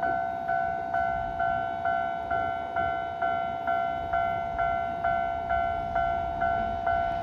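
Japanese railway level crossing alarm ringing its repeated two-tone bell, about two strikes a second, each strike fading before the next. A low rumble sits underneath it.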